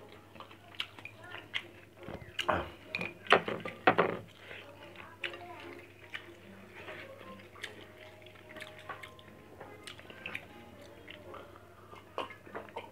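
Close-up eating sounds: chewing and small clicks of fingers and food on a ceramic plate. A cluster of louder knocks comes about two to four seconds in, and there is a sip from a mug near the end.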